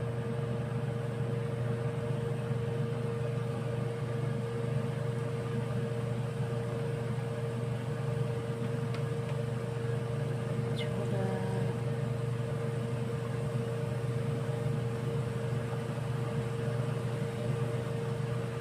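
Banana molen pieces deep-frying in a wok of hot oil, a steady sizzle and bubbling, over a constant low machine hum with a steady tone that is the loudest part throughout.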